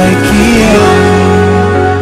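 Background music with slow, held notes and chords.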